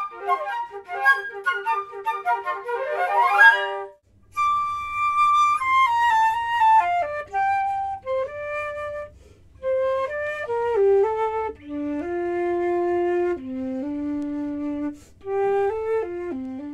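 Flute quartet playing: quick, detached repeated notes that end in a fast rising run, then, after a short break about four seconds in, a slower melody of longer notes stepping downward, at first from one flute alone, closing on long held low notes.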